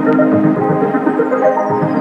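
Background music: electronic synthesizer music with steady held notes and quick plucked notes, and a single falling whistle-like tone sweeping down through the second half.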